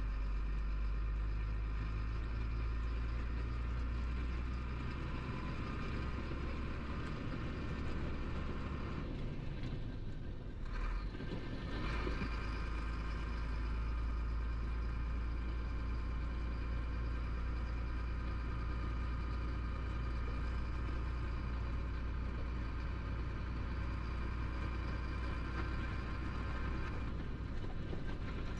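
Cab interior sound of a Chenglong 375 truck's diesel engine running steadily under way, heard from the driver's seat. About ten seconds in, the engine note drops away briefly and then picks up again.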